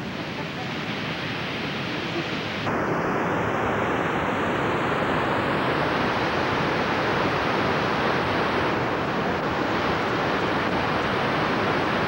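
Waterfalls' steady rush of falling water, which becomes louder and fuller about three seconds in.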